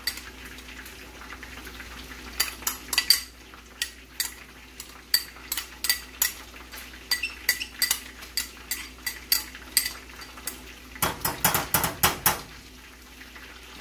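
Light clinks of a spoon against a small glass bowl as chopped roasted garlic is scraped out into a stainless steel pan, a couple of clinks a second, with a quicker run of louder knocks near the end.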